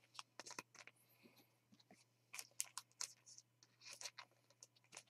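Near silence with faint, scattered clicks and short rustles of baseball cards being handled.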